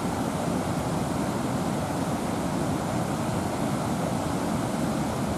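Steady rushing roar of white-water river rapids.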